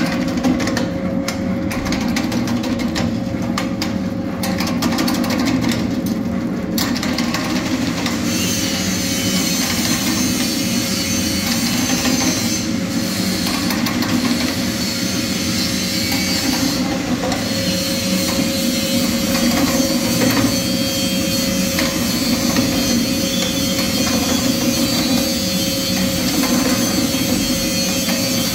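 Supari (areca nut) cutting machine running as it slices betel nuts, with a steady mechanical hum. A rapid run of sharp clicks and cracks fills the first several seconds, then settles into a more even noise.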